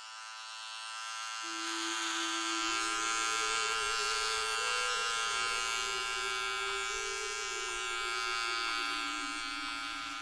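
Electric hair clippers buzzing steadily as they cut hair. The buzz fades in over the first couple of seconds, and its pitch shifts slightly up and down, dipping near the end.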